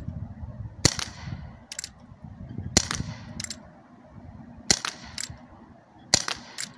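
Crosman RR1875 CO2 air revolver firing BBs: four sharp pops about two seconds apart, each followed about half a second later by a fainter click.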